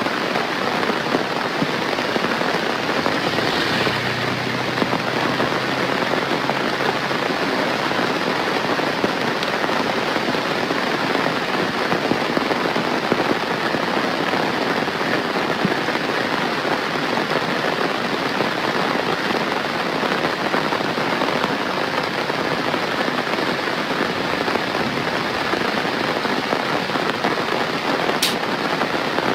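Steady heavy rainfall: a dense, even patter of drops on surfaces, with one sharp click near the end.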